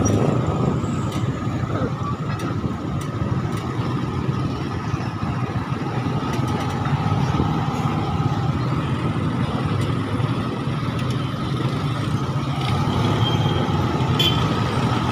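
Motor vehicle engine running steadily at low speed, heard from aboard the vehicle in street traffic, with a steady thin whine above the engine note.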